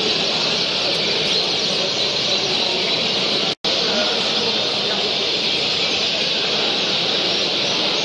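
Dense chorus of many caged canaries singing and chirping at once, a steady wash of high, overlapping twitters. The sound drops out for a moment about three and a half seconds in.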